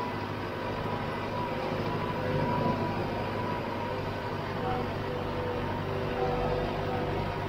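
Valtra C120 tractor's diesel engine running steadily as it pulls a slurry tanker across a field, heard from behind the cab.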